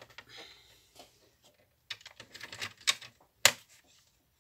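Sliding-blade paper trimmer being worked: a run of plastic clicks and clatter with a short scraping slide as the rail and blade carriage are handled, ending in one sharp snap about three and a half seconds in.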